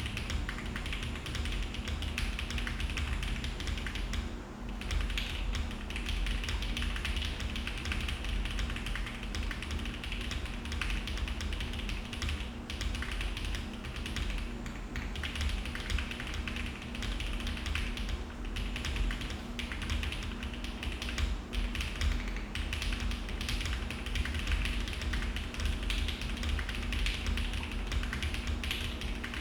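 Continuous fast typing on a Mode Envoy custom mechanical keyboard with HMX Pearl switches, an FR4 plate, plate and case foam, and GMK Tiramisu keycaps: a dense stream of keystroke clacks with a brief lull about four and a half seconds in.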